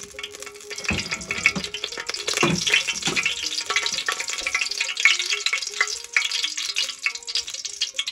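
Cooking oil sizzling and crackling as it heats in a metal saucepan over a charcoal stove, getting denser about a second in. A few low knocks come about one and two and a half seconds in.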